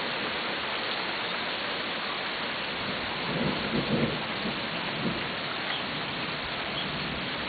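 Heavy rain falling steadily on pavement, with a low rumble of thunder swelling about three seconds in and fading again after about five seconds.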